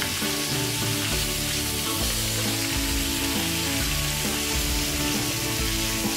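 Marinated meat sizzling steadily on a hot grill pan over a portable stove, with background music.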